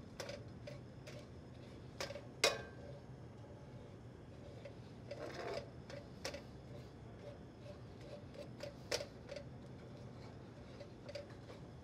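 Metal spoon clicking and scraping against a pan as sugar is stirred while it melts into caramel: frequent light, irregular ticks, with sharper knocks about two and a half seconds in and again about nine seconds in.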